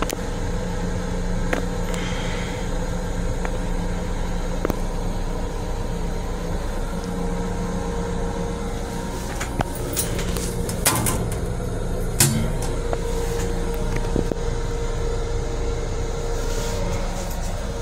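Steady hum and rumble of a Long Island Rail Road M7 electric railcar, heard from inside its small enclosed restroom, with two steady tones in it. A few short clicks and rattles stand out around the middle.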